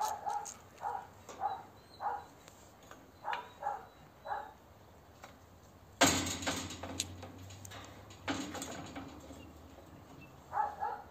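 An animal's short calls, repeated about every half second and often in pairs. About six seconds in, and again near eight, there is a loud sudden noise, a clatter that fades over a second or so.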